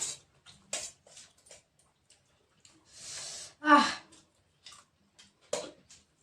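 Mouth sounds of someone eating raw green chillies: short crisp chewing clicks, then a hissing breath drawn through the mouth about three seconds in, followed at once by a short, loud vocal sound falling in pitch, a reaction to the chilli heat.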